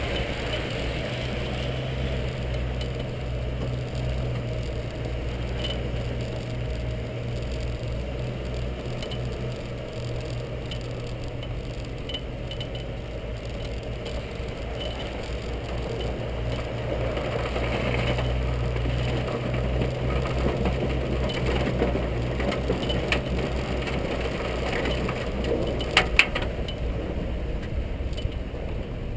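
Engine of a small vehicle running steadily as it drives over rough gravel ground, with light rattling and clinking from the vehicle's frame. A few sharp clicks near the end.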